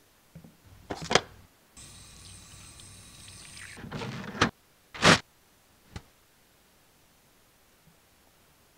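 Knocks, then a steady rushing noise for about two seconds. Then brown paper towel is pulled from a wall-mounted dispenser and torn off against its serrated edge: a rising rustle that cuts off sharply, then a loud short rip about five seconds in.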